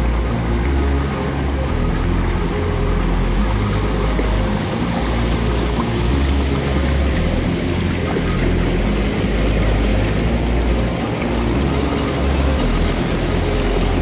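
Background music with a deep bass line that steps from note to note, playing steadily.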